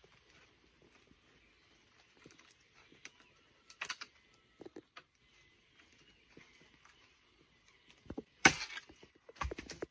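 Scattered light clicks and knocks, with a sharp, louder crack about eight and a half seconds in and a few more knocks just after.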